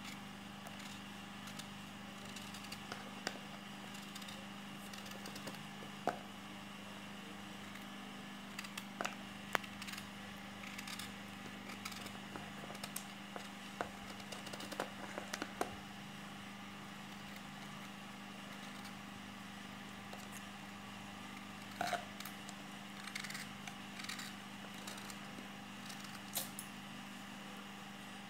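Small knife peeling an unripe mango: scattered short scrapes and clicks of the blade on the skin, over a steady low hum.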